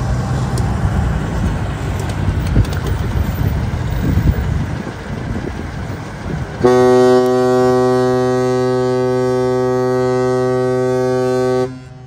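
Diesel tanker truck driving past close, its engine running. About seven seconds in, a ship's horn sounds one long, steady, low blast for about five seconds and stops abruptly.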